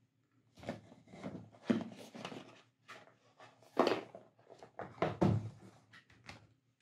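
A cardboard phone box being handled: rustling and scraping as the phone on its tray is slid out of the box, with several sharp knocks as box and phone meet the wooden desk, the loudest about two, four and five seconds in.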